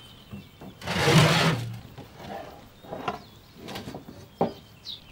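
Metal oven door of a wood-burning cookstove scraping and creaking open about a second in, then several shorter knocks and scrapes as a metal pan is handled.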